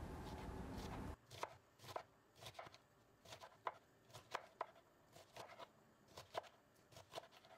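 Knife slicing fresh broad bean pods into thin rounds on a wooden cutting board: faint, crisp cuts coming irregularly, a few a second, starting about a second in after a steady faint hiss.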